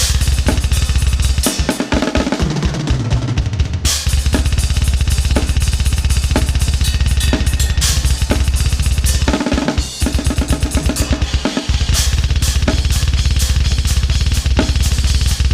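Metal drum kit playing fast blast beats, a rapid double bass drum pulse under quick snare and cymbal hits. The beat breaks twice, about two seconds in and again near ten seconds, for a quick fill running down the toms.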